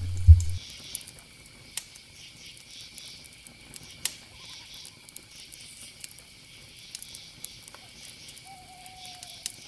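Wood campfire crackling with scattered sharp pops over a steady high chirping of insects, with a faint short whistle sliding down near the end. A brief low hum ends with a loud thump about a third of a second in.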